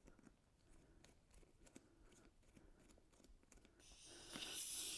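Faint small clicks and taps of the inner tube's valve being handled and fitted back in, then a steady hiss starts about four seconds in.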